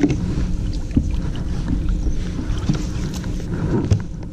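Steady low rumble of a fishing boat on the water with a faint hum, and a few light knocks about the deck.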